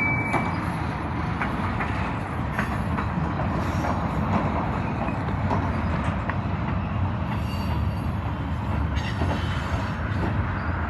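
Train cars rolling along the rails: a steady low rumble with scattered faint clicks of wheels over rail joints.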